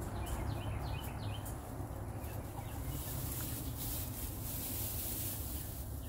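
Chickens cheeping: a run of short, falling high peeps in the first couple of seconds, then dry hay rustling as it is pulled apart and pushed into a wire cage, with a hiss from about halfway through.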